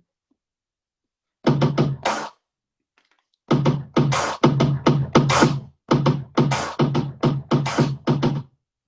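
Electronic music with a choppy drum-machine beat: a short burst about a second and a half in, then after a pause a run of quick stuttering hits holding one low pitch, which stops just before the end.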